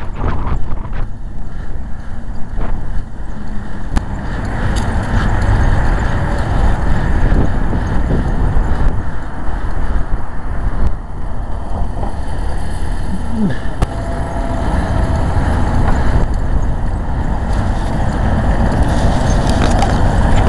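Loud, steady rumbling noise of a vehicle in motion, with scattered clicks and knocks.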